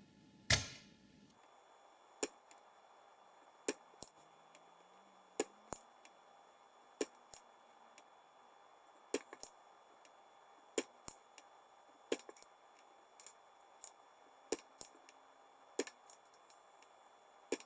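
Spring-loaded desoldering pump snapping as it is cocked and fired, sucking old solder out of capacitor through-holes on a motherboard: sharp clicks about once a second, often in quick pairs, the loudest about half a second in.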